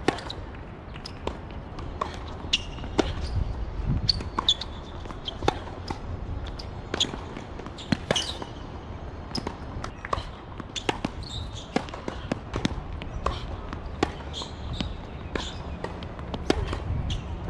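Tennis ball being served, struck by rackets and bouncing on a hard court: a string of sharp knocks at irregular spacing, over a steady low background.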